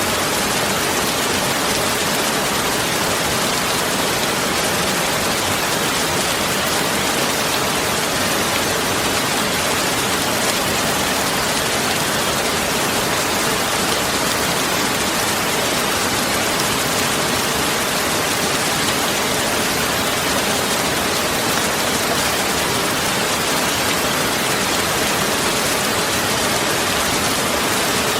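Steady, unbroken rushing noise, even and loud, with no changes or separate events.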